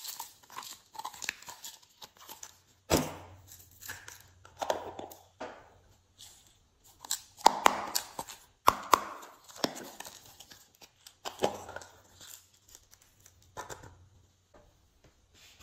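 Small plastic slime container being handled and opened: irregular crackling and tearing sounds with several sharp plastic clicks, the loudest about three, seven and a half and nine seconds in.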